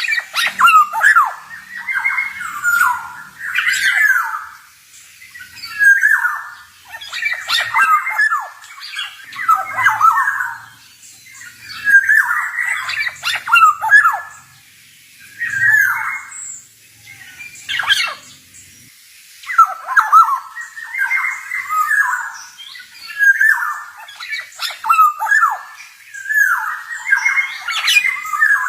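Male black-naped oriole (kepodang) singing: a rapid string of short, loud phrases of squawky whistles and sharp clicks, one phrase every second or two.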